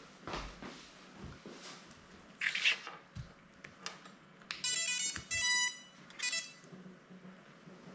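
Electronic startup beeps from a small FPV drone's brushless motors, played by the ESCs as the battery is connected. There are three short groups of stepped, melodic tones, after a brief rustle of handling.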